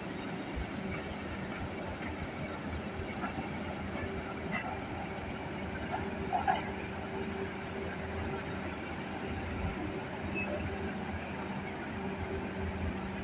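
Hitachi excavator's diesel engine running steadily with a low hum, plus a short higher-pitched sound about six and a half seconds in.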